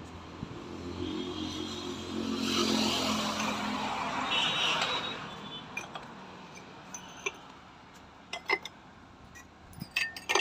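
A road vehicle passing close by, its engine and tyre noise swelling and then fading over the first five seconds. Later, a few sharp clinks of ceramic pots being knocked together as they are handled, the last near the end.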